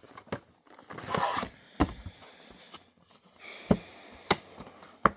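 Hands working at a sealed cardboard trading-card hobby box: rustling and scraping of the packaging, with several sharp taps and clicks.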